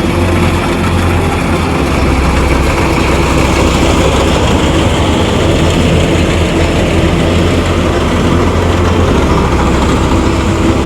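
Heavy farm-machinery engine running steadily at a constant speed, a deep hum under a loud mechanical whirring, typical of a harvesting machine at work in the rice field.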